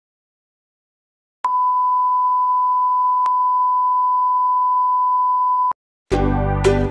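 Electronic beep: one steady single tone held for about four seconds, with a faint click partway through, cutting off suddenly. Instrumental background music starts near the end.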